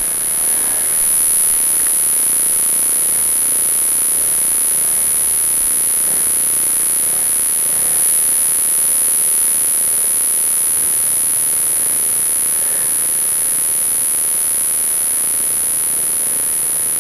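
Steady loud hiss with a constant high-pitched whine through it, typical of an action camera recording inside its case. Any engine or rock sound from the dirt bike is buried under the hiss.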